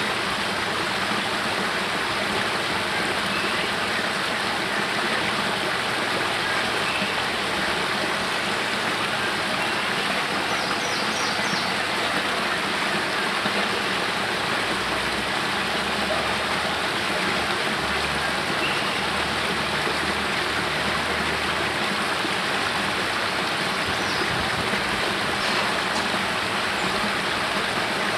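Spring water spilling from a cave mouth down a short rocky cascade into a pool: a steady, unbroken rush of falling water.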